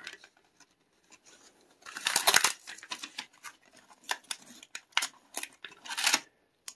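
A carded Hot Wheels car's package being ripped open: cardboard backing tearing and the plastic blister crackling in a run of irregular bursts and snaps, the loudest about two seconds in.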